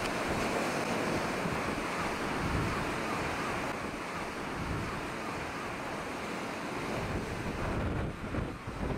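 Wind buffeting the microphone over the steady rush of a rough sea breaking in whitecaps.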